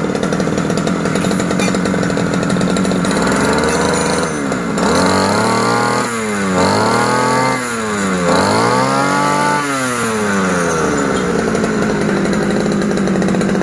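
Small petrol engine of a backpack brush cutter running steadily, then revved up and back down about three times in a row before settling back to a steady idle.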